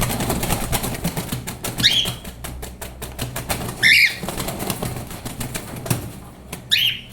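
Weeks-old cockatiel chick giving three short, sharp calls about two seconds apart, over a run of rapid rustling ticks during the first half.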